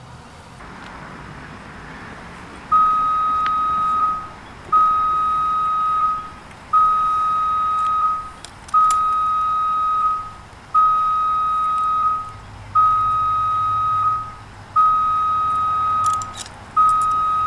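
Smoke detector alarm sounding with fresh batteries fitted: a steady electronic beep, each about a second and a half long, repeating every two seconds, eight times, starting a few seconds in.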